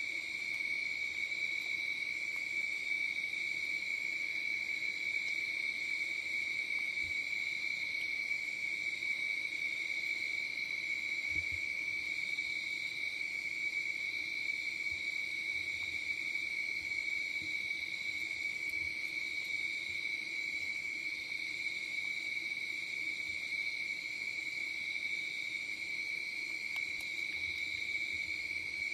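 Chorus of night insects, a steady unbroken high-pitched trill, with a faint low drone underneath.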